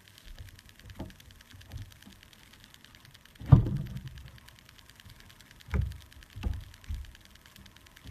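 Slime being handled by hand: a few short, soft squishing sounds, the loudest about three and a half seconds in.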